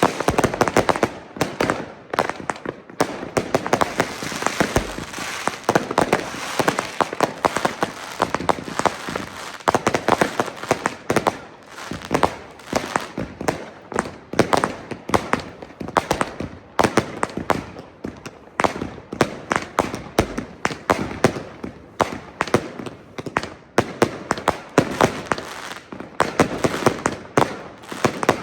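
Consumer category F2 New Year's Eve fireworks and firecrackers going off in a dense, continuous string of overlapping pops and bangs, several a second, with no pause.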